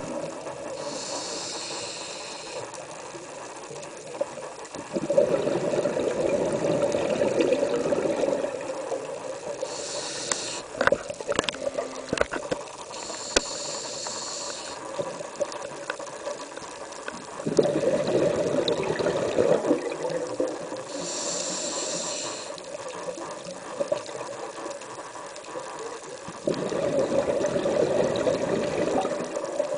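Scuba diver breathing through a regulator, heard underwater: three long bubbling exhales of about three seconds each, with short hissing inhales between them. A cluster of sharp clicks comes near the middle.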